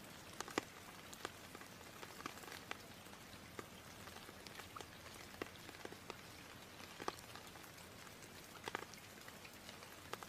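Faint steady hiss with scattered, irregular soft clicks, a light pattering crackle.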